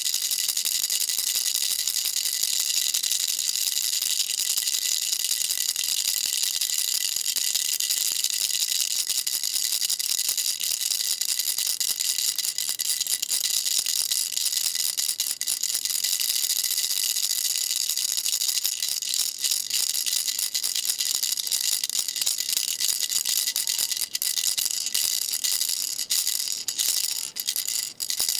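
Baby rattle shaken continuously: a dense, high-pitched rattling of small beads with a faint ringing, broken by a few brief pauses near the end.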